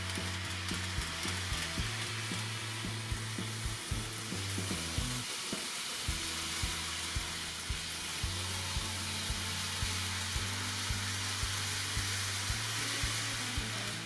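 N-gauge model trains running on the layout: a steady hiss with regular light clicks, over background music with low held notes.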